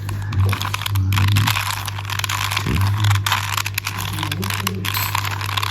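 Plastic Rubik's cube layers being twisted rapidly and repeatedly, a dense run of clicks and clacks from R U R' U' moves, over a steady low hum.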